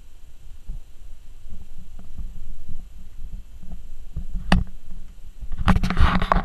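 Corgi puppy mouthing and tugging a plush hand puppet close to the microphone: low rumbling and soft thumps, a sharp click about four and a half seconds in, then loud scuffling and rustling of the fabric near the end.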